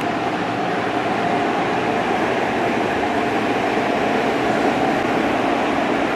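Noisy car wash machinery running: a steady, even rushing noise that does not let up, with a faint steady hum in it.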